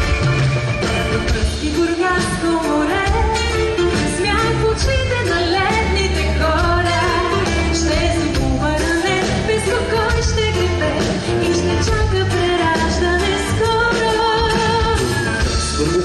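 A woman singing a pop song with a live band, keyboards and electric guitar among them; a man's voice takes over near the end.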